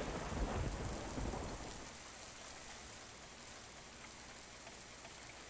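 Rain falling during a thunderstorm: a faint, steady hiss that drops a little in level over the first two seconds.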